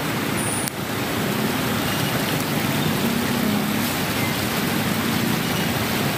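Traffic moving slowly through a flooded road: a steady wash of water churned up by tyres, with a low engine hum underneath.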